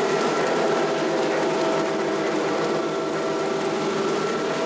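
Lionel O gauge Sleigh Bell Limited passenger train running steadily along three-rail track: a continuous rolling noise of wheels on rail, with faint steady tones over it.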